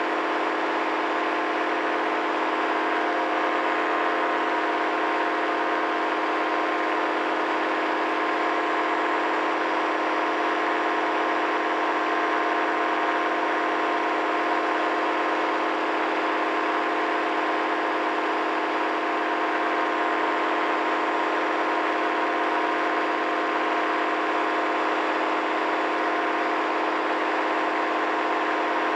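Paramotor engine and propeller running steadily in cruise flight, an even drone that holds the same pitch and level throughout.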